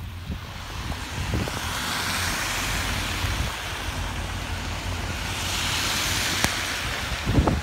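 Road vehicle noise: a rushing hiss that swells and fades twice over a steady low engine rumble, with a few low thumps near the end.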